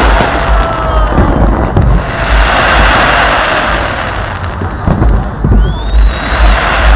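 Aerial fireworks display: repeated bangs and booms over a continuous crackling haze, with a rising whistle near the end.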